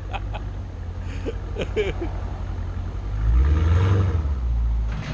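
Dodge Challenger Scat Pack's 6.4-litre HEMI V8 idling with a low rumble through a muffler-deleted exhaust. About three seconds in it is revved once, louder for about a second, then settles back before dropping away at the end.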